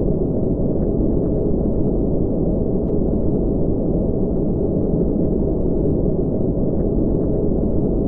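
Spaceship-interior white-noise ambience: a steady, deep rumbling noise with no high end, unchanging throughout, with a few faint ticks.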